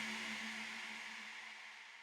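Electronic music fading out: sustained tones and a held low note dying away steadily.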